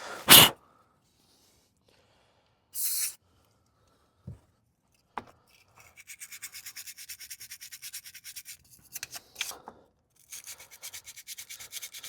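A small brush scrubbing the pins of a car's 42-pin electrical connector in rapid back-and-forth strokes, cleaning off corrosion. Before the scrubbing come two short hisses of spray cleaner, near the start and about three seconds in.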